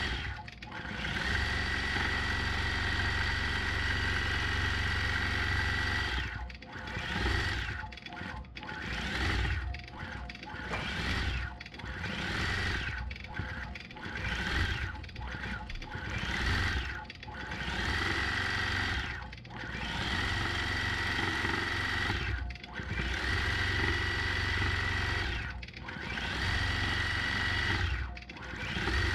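Gammill longarm quilting machine with Statler computer control stitching out a leaf pattern: a steady motor hum with rapid needle strokes. It runs evenly for several seconds, then eases off and picks up again about once a second, then runs evenly again near the end.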